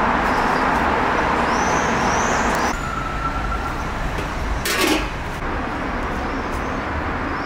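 Steady street traffic noise with small birds chirping high above it; the louder traffic wash drops off abruptly about two and a half seconds in, and a short clatter comes near five seconds.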